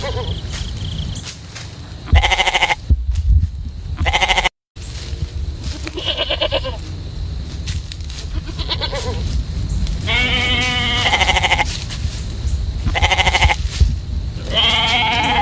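Sheep in a flock bleating, about seven separate calls of different pitches, the longest about ten seconds in, over a steady low rumble.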